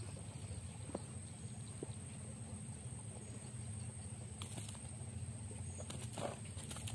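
Outdoor ambience: a steady low rumble, a thin steady high-pitched tone, and a few soft clicks and taps, the clearest ones near the end.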